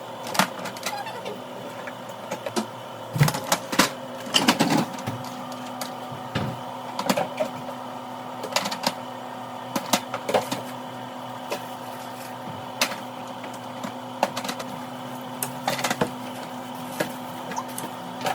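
A vending machine being restocked: irregular clicks and knocks of products and tray parts being handled and set in place, over a steady hum.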